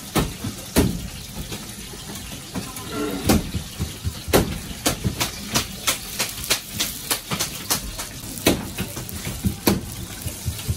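Irregular sharp knocks and clatter of utensils and cookware at a food-stall kitchen, roughly one or two a second and busier in the middle, over a steady low background hum.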